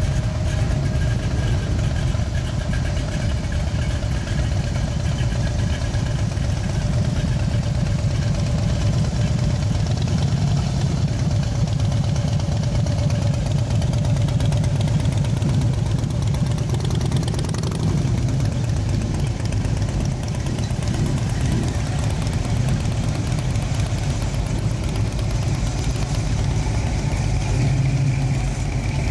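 A slow procession of classic and custom cars, with a motorcycle among them, rolling past at a crawl: a steady mix of engines running at low revs.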